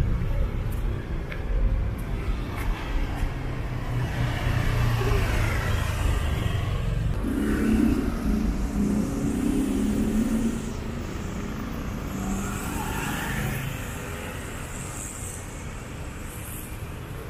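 Street traffic: motor vehicles passing close by. One engine is loudest about halfway through, then drops off abruptly, leaving a quieter steady traffic hum.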